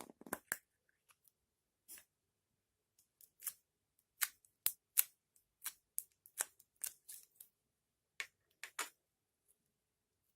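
Slime being mixed and squished by hand, making an irregular run of sharp clicks and pops, most of them packed between about four and nine seconds in.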